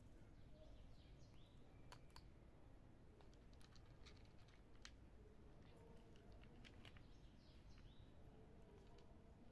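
Near silence: faint scattered clicks and a few faint, short, high chirps.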